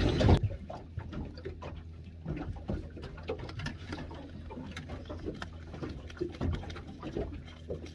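Scattered small clicks, knocks and rustles of a freshly caught King George whiting being handled and unhooked by hand, over a faint steady low hum.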